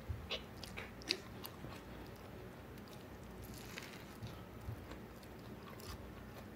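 Faint mouth sounds of eating: scattered short, wet chewing clicks and small crunches, the sharpest about a second in.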